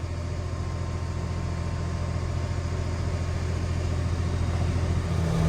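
Farm tractor's diesel engine running steadily with a low drone that slowly grows louder; near the end its note shifts as the engine speed changes.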